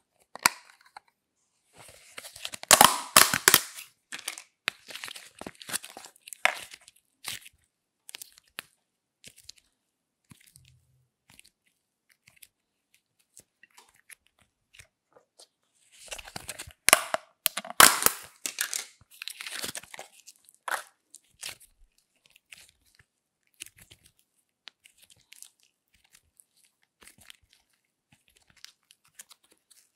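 Slime being handled, pulled and stretched by hand, with two spells of sticky crackling and tearing: one about two seconds in and a longer one from about sixteen to twenty-one seconds, with light clicks and rustles between.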